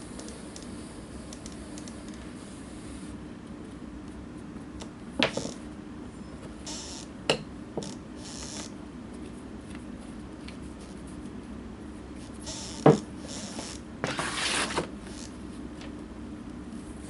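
Handling noises as a leather welt strip and its dye bottle are worked with: a few sharp knocks, the loudest about two-thirds of the way through, and several short rubbing scrapes, over a steady low hum.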